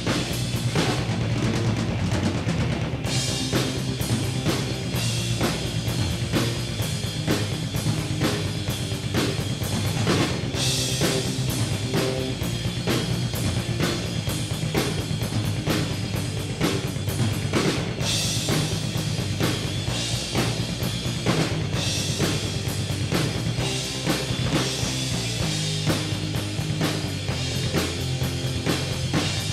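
Rock drumming on a Yamaha drum kit: rapid kick drum and snare strokes with cymbals, the cymbal wash coming up strongly in a few stretches, over a steady pitched bass line.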